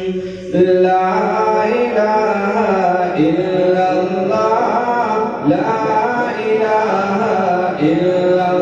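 Solo male voice reciting a naat into a microphone, unaccompanied, in long ornamented sung phrases with a short pause for breath just under a second in.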